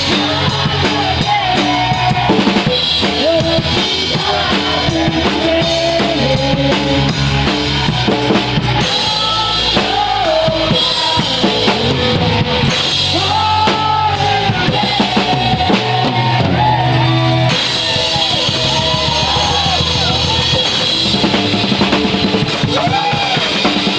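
Live rock band playing an instrumental passage, the drum kit loud and close with bass drum, snare and cymbals over the other instruments.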